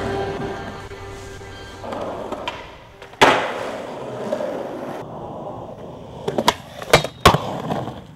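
Skateboard wheels rolling on concrete, with a loud sharp board clack about three seconds in and a quick run of clacks from pops and landings near the end. Music plays faintly under the first half.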